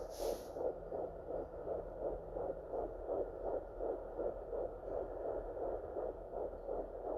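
Fetal heartbeat through a home fetal Doppler's speaker: a fast, even whooshing pulse at about two and a half beats a second, a typical fetal heart rate. A brief hiss just at the start.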